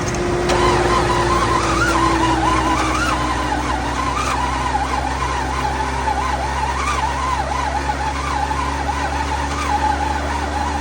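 Starter motor cranking the 1995 BMW 750iL's V12 without it catching: a steady whine that has just spun up and slowly sinks in pitch, with a wavering higher squeal over it. Smoke came from the starter during this cranking, which the owner takes for a starter fault.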